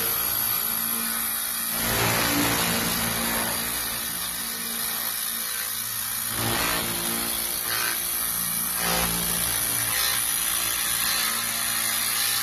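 500 W pulsed laser cleaner ablating a layer of yellow paint about 50–75 μm thick off a perforated steel table, with a steady, dense hiss and a strong high-pitched sizzle that swells a little now and then as the beam sweeps.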